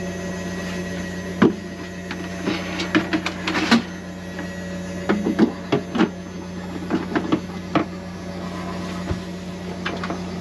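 Irregular clicks and knocks of plastic parts being handled inside an OGO composting toilet's chamber, over a steady low hum.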